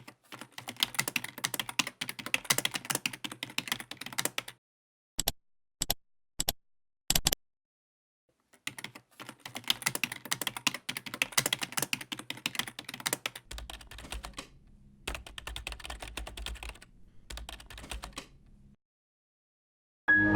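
Typing on a computer keyboard: fast runs of keystrokes, then four single key presses, a short pause, and more rapid typing. In the later stretch a low hum sits under the clicking keys.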